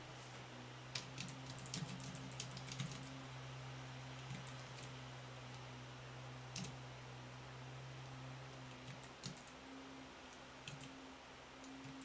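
Keys of a FrogPad one-handed keyboard clicking under the fingers of one hand: a quick run of keystrokes in the first few seconds, then scattered single presses. A steady low hum runs underneath.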